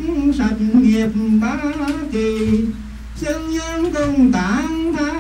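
Slow melodic Buddhist ceremonial chanting: a voice holding drawn-out notes that slide and waver up and down.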